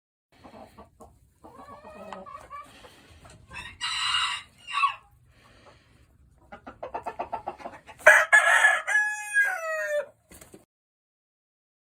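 Gamefowl roosters clucking, with a loud call about four seconds in. About eight seconds in a rooster crows loudly, its long call falling in pitch at the end.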